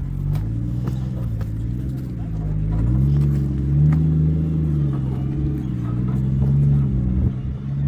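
Four-wheel-drive vehicle engine pulling at low revs over a rough track, its note rising and falling repeatedly as the throttle is worked, with the biggest rise about three seconds in.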